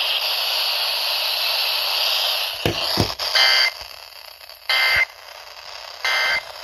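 Radio static hiss that fades out about two and a half seconds in, a couple of clicks, then three short data squawks about 1.4 seconds apart: the Emergency Alert System end-of-message (EOM) bursts that close the severe thunderstorm warning broadcast.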